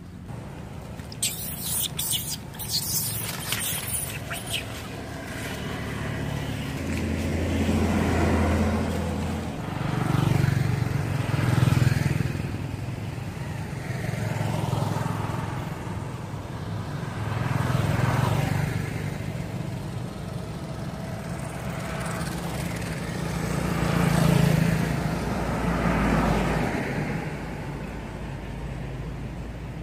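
Road traffic: vehicles passing one after another, each swelling and fading over a few seconds with a low rumble. A run of sharp crackling clicks comes in the first few seconds.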